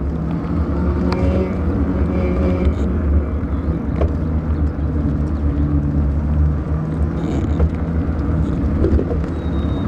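Steady low rumble of wind and road noise on a camera microphone riding along on a moving bicycle, with a few faint clicks.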